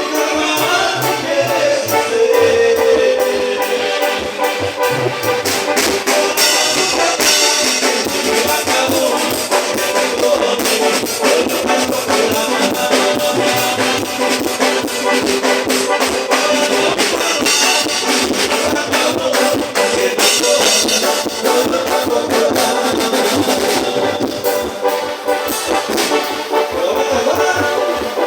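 Band music led by brass horns over a steady beat.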